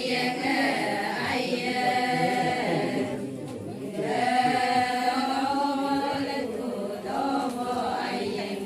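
Adi ponung song: a group of voices chanting in unison in long held lines, with a short break a little over three seconds in.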